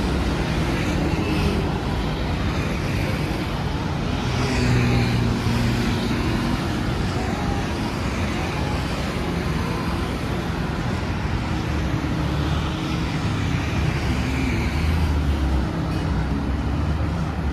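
Road traffic: motor vehicles running and passing in a steady wash of engine and tyre noise.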